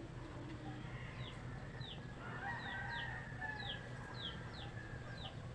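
Chickens: chicks peeping over and over in short falling peeps, about two a second, and a rooster crowing about two seconds in, over a steady low hum.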